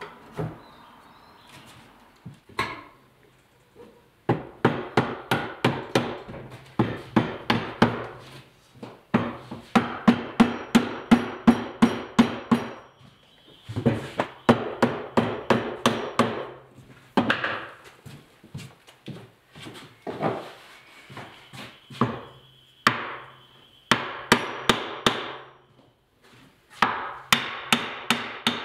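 Hammer blows on the ends of black cherry table legs, driving their tapered tenons into the holes of the base. The strikes come in quick runs of about three a second, with short pauses between runs.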